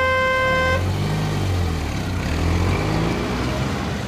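Car sound effects: a horn sounds steadily until just under a second in, then a car engine revs and runs, its pitch rising and falling.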